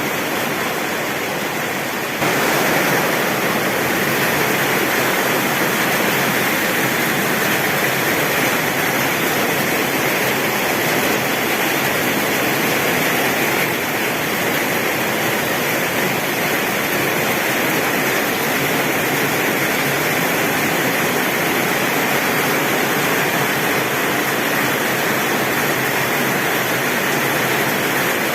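Heavy rain pouring steadily on a tin roof, a dense even hiss that steps up a little louder about two seconds in.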